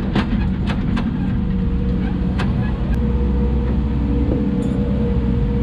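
Hidromek 140 excavator's diesel engine running at a steady pace, with a few short clicks during the first three seconds.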